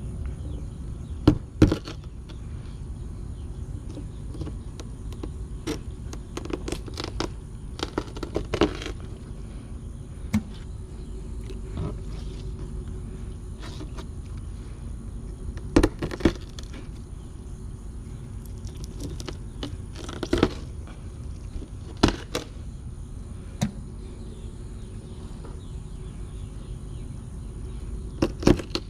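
A curved-blade hand knife chopping the heads off scaled bluegill, each cut ending in a sharp knock or crunch against a plastic table, at irregular intervals a few seconds apart. Under it runs a steady low rumble.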